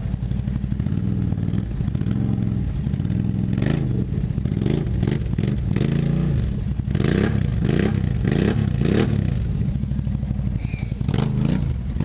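ATV engines running at idle, with repeated short throttle blips that make the pitch rise and fall in quick succession, most often in the second half: a quad being worked out of a muddy rut where it is stuck.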